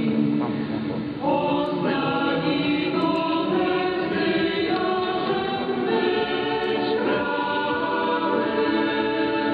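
Choir singing sustained chords, changing to new chords about a second in, at two seconds and again near seven seconds, heard through a longwave AM radio receiver with the treble cut off above about 5 kHz.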